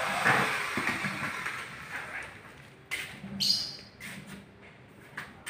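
Handling noise from PVC door frame profiles: a noisy scrape over the first two seconds, then light knocks and a short high scrape about three and a half seconds in.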